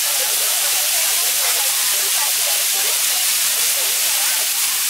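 Diced beef sizzling steadily on a hot flat-top griddle, a loud even hiss of searing meat.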